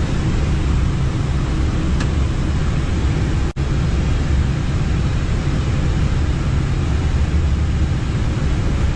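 Steady cockpit noise of an airliner in flight: a continuous low rumble with the hiss of airflow over it. It cuts out for a split second about three and a half seconds in.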